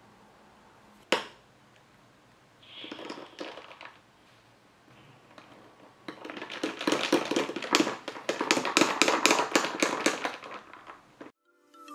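A long spoon stirring iced coffee in a tall glass, clinking rapidly against the glass and the ice cubes, about four clinks a second. Earlier a single sharp tap sounds about a second in.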